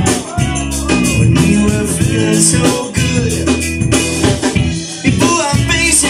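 A live band playing, with electric guitars and a drum kit keeping a steady beat and a singer's voice over the top, heard through the room.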